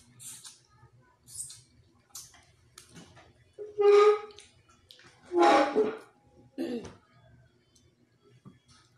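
Wet mouth sounds of a person eating with her fingers, a few short smacks and sucks in the first three seconds, then two loud throaty vocal sounds about four and five and a half seconds in and a shorter one near seven seconds.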